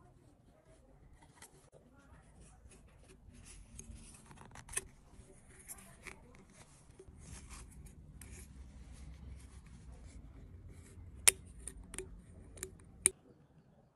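Stiff wire being bent and wound around the metal screw base of a glass light bulb, with faint scraping and irregular small clicks and ticks. About four sharper clicks come near the end.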